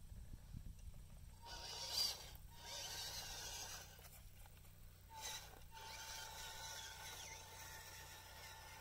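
Faint whine of a 1/16-scale RC truck's small brushed 180 electric motor and geared drivetrain as it drives over dirt, coming and going with the throttle, with a brief louder moment about two seconds in.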